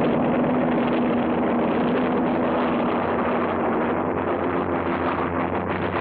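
Racing powerboat engines running flat out in a steady drone, with a dense rushing noise.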